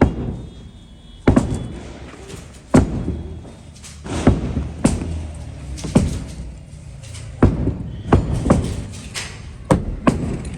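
Heavy hammer blows from building demolition work, struck irregularly about once a second, each hit sharp with a short ringing tail.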